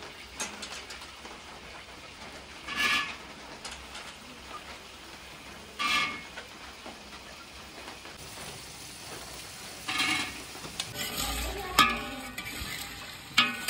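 Carrot and cauliflower pieces sizzling as they shallow-fry in oil in a handi, stirred with a spatula in short strokes. The strokes come every few seconds at first and more often near the end.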